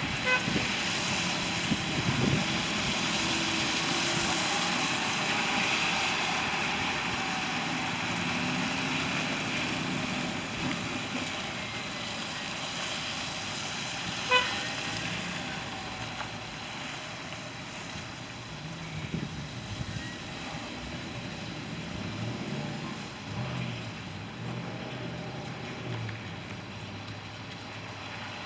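Street traffic: steady noise of passing road vehicles, with a brief car-horn beep about halfway through.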